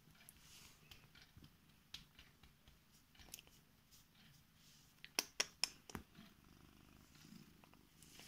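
Korat cat purring steadily as she is stroked. A quick run of four sharp clicks comes about five seconds in.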